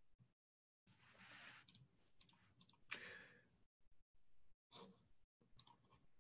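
Near silence in a small room, with a soft breath-like rush of noise about a second in and one sharp click about three seconds in, among a few fainter clicks.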